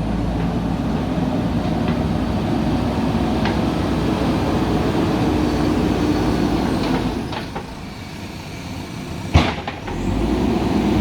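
JCB 3DX backhoe loader's diesel engine running under working load. It eases off a little past halfway and picks up again near the end, with one sharp, loud knock about nine seconds in.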